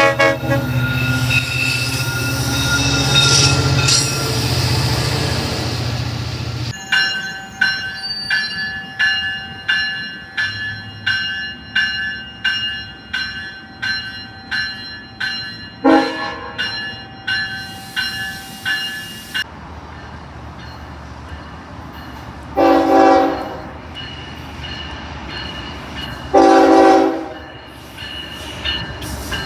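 Train horns at a railway: a heavy train rumble first, then regular ringing dings about every 0.8 seconds with a brief horn toot, and two horn blasts of about a second each a few seconds apart.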